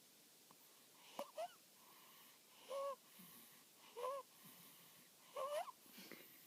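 A two-week-old animal snoring in its sleep, with a squeaky, whistling wheeze on each breath. There are four, about one every second and a half, each sliding up and down in pitch.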